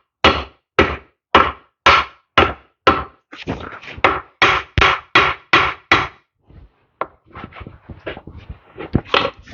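Hand hammer striking a tractor part in steady blows, about two a second for roughly six seconds. Then lighter, irregular knocks and clatter, with one louder knock near the end.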